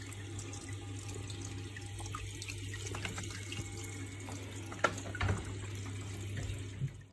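Aquarium water trickling steadily from the tank's hang-on filter, over a steady low hum from the filter motor. Two light clicks about five seconds in.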